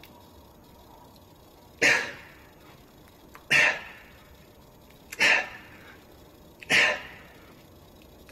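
A man's sharp, forceful exhalations, one with each rep of a set of upright rows, four times at an even pace about a second and a half apart.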